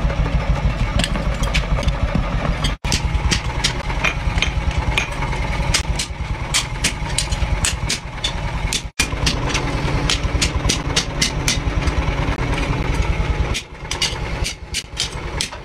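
Hammer blows on red-hot bearing steel being forged into a knife blade on an anvil: sharp ringing strikes about three a second, over a steady low machine hum. The sound cuts out briefly twice, and near the end the hum falls away and the strikes thin out.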